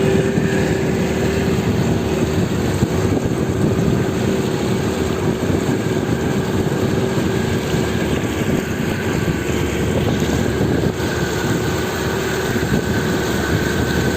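Boat motor running at a steady speed under way: an even drone over a rushing noise.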